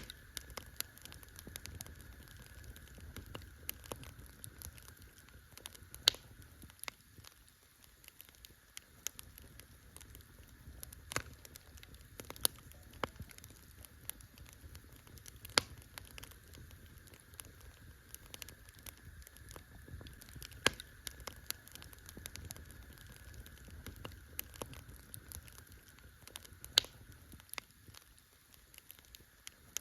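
Campfire crackling: burning wood pops and snaps at irregular intervals over a soft steady hiss, with a handful of sharper, louder snaps standing out.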